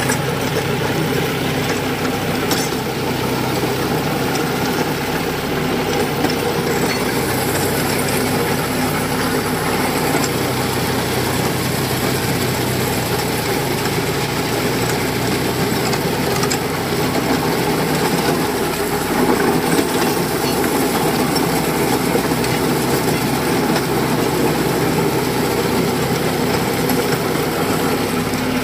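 John Deere tractor's diesel engine running steadily under load while driving a Green System rotavator, its blades churning dry soil.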